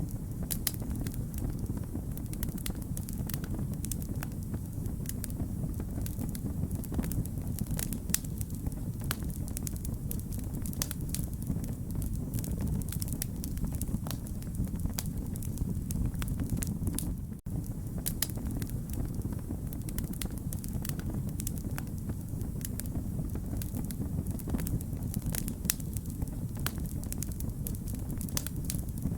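Wood fire burning with a steady low rumble and frequent sharp crackles and pops. The sound cuts out for a split second about 17 seconds in.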